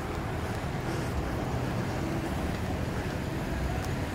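Steady low rumble of a vehicle engine running at idle.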